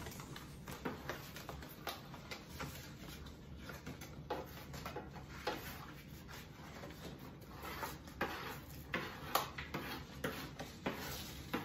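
Paper cookie boxes being folded and put together by hand: irregular soft rustles, taps and clicks, with small clinks of a spoon against a metal sieve and bowl.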